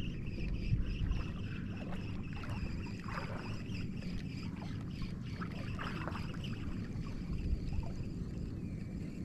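Shallow water lapping and sloshing, with the steady faint whir of a Daiwa Sweep Fire spinning reel being cranked to retrieve a small lure.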